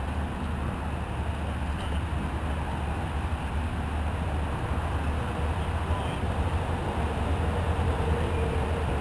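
Steady low rumble of outdoor background noise, with no distinct knocks or impacts.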